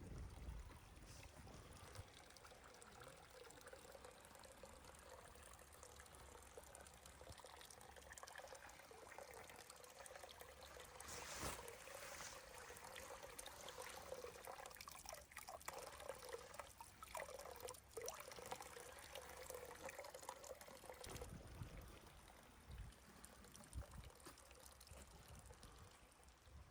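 Faint trickling water, pouring and running steadily.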